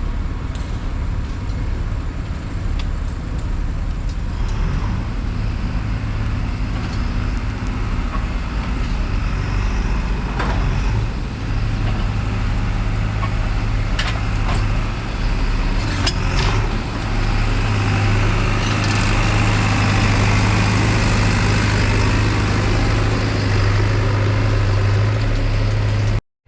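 Motor traffic with a heavy vehicle's engine running close by: a steady low drone that grows stronger about halfway through, over a general street noise, with a few sharp clicks or knocks.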